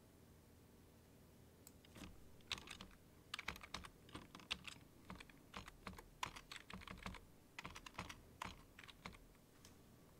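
Typing on a computer keyboard: irregular key clicks in quick runs, starting about two seconds in and stopping shortly before the end.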